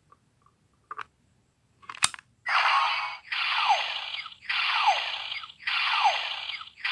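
A sharp plastic click as a hero piece snaps into a Legend Hero Changer DX toy. The changer's small speaker then plays a looping electronic sound effect, a falling swoop repeated about once a second.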